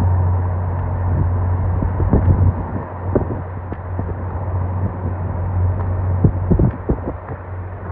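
Car driving on a snowy mountain road: a steady low rumble with scattered short knocks and thumps.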